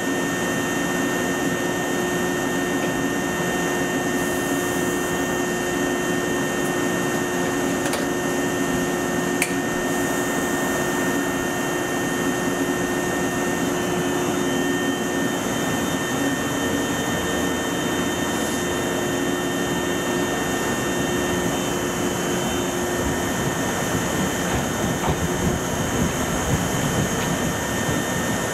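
Electric trains standing at a station platform, their onboard auxiliary machinery (air-conditioning units and blowers) giving a steady whirring hum with a low drone and high steady whines. The low drone stops a few seconds before the end and a low uneven rumble rises as the Izukyū 2100 series train pulls away.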